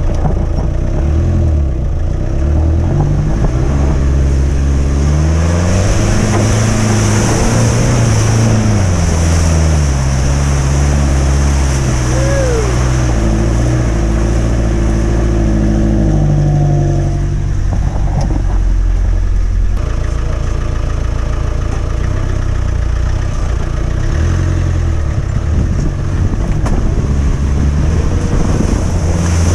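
Land Rover 110's engine working under load while driving through mud and standing water. Its pitch rises and falls several times as the throttle is opened and eased off, over a steady wash of water and mud noise.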